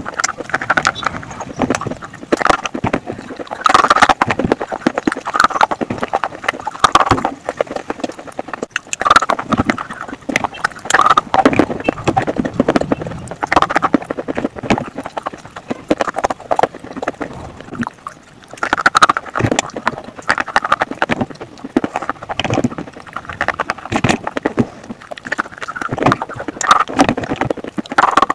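Slate pencils being bitten and chewed close to the mouth: bursts of crisp crunching and clicking, one chewing run after another.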